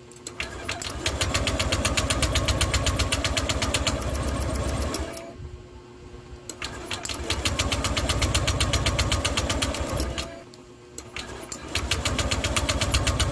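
Honda Click 150 scooter engine being cranked by its electric starter in three attempts of about four seconds each, with a short pause between them. The engine stops completely in each pause, a sign of the hard starting that is blamed on lost compression.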